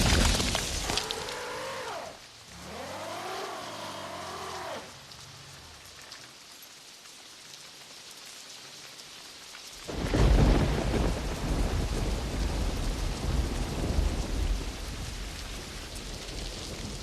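Film sound effect of a thunderstorm: a loud thunderclap at the start, then steady rain, with heavy low thunder rumbling over the rain from about ten seconds in. Two drawn-out pitched calls, rising and falling, sound in the first five seconds.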